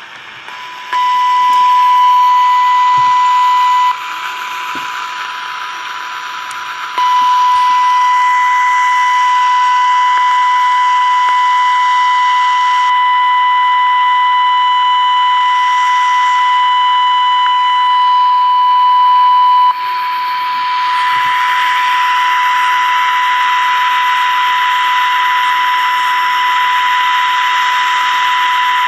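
Steady 1 kHz test tone over hiss from a 1967 Zenith Royal 51 transistor radio's speaker. This is the signal generator's 455 kHz AM-modulated test signal coming through the IF stage while the IF transformers are being aligned. The tone cuts out about 4 seconds in and returns about 7 seconds in, and from about 20 seconds on the hiss under it grows stronger.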